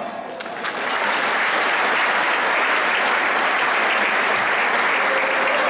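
Audience applause, swelling up within the first second and then holding steady as dense clapping.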